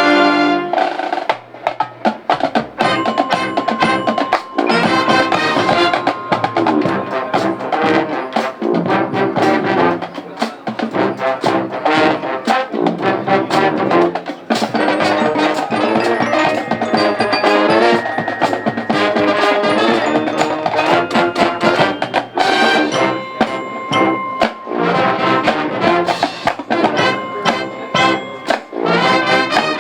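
Marching band playing: brass with trumpets and trombones over a busy drumline, with many sharp percussion strikes.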